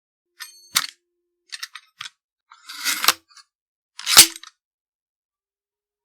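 Firearm reload: a few light metallic clicks, a short sliding rattle, then one loud sharp clack about four seconds in.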